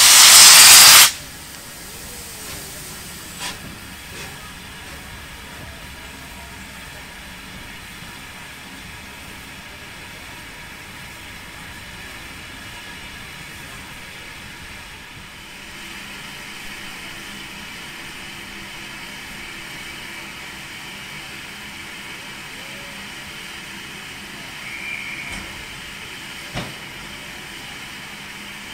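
A loud, hissing blast of steam from Southern Railway Battle of Britain class pacific 34072, about a second long at the start, then a steady, much quieter steam hiss with a couple of faint knocks.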